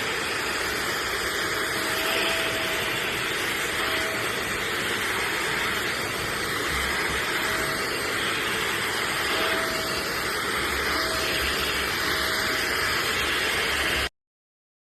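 Portable spot cleaner's vacuum motor running, a steady loud whoosh of suction with a few brief faint whistles. It stops abruptly near the end.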